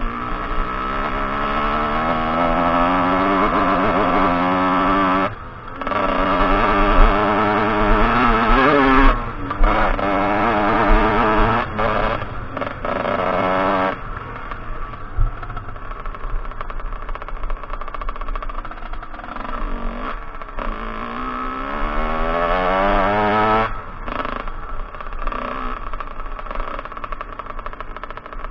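Kawasaki KX 125 two-stroke dirt bike engine revving hard up a gravel track, its pitch climbing and breaking off again and again as the rider shifts and rolls off the throttle. It runs lower for a while past the middle, then climbs once more before dropping back.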